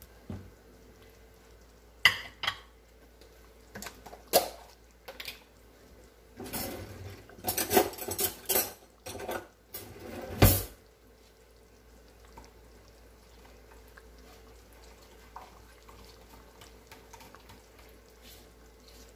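Metal ladle knocking and scraping against a stainless steel stock pot while stirring thick beef goulash: a string of clanks, thickest between about six and nine seconds in, ending in one loud knock about ten seconds in.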